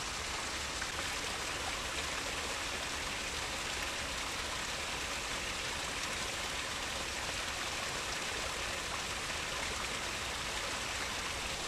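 Steady rushing of water flowing into a pond.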